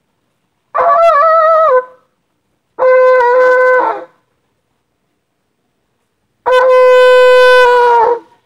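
Shofar blown three times: a shorter wavering blast about a second in, a second blast, then a longer steady blast that sags in pitch as it dies away near the end.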